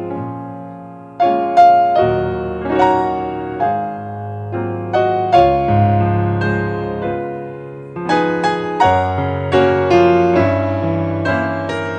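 Solo piano music: notes and chords struck one after another, each left to ring and fade.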